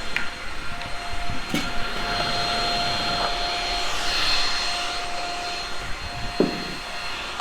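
Shark Rocket stick vacuum running steadily with a whining motor tone, its level swelling and easing as it is worked along the carpet edges. A sharp knock comes about a second and a half in and a dull thump near the end.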